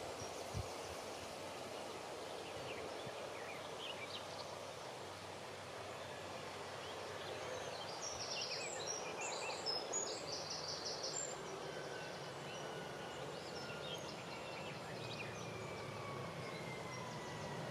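Steady outdoor background noise with a few faint chirps around the middle. Near the end a distant engine drone slowly falls in pitch.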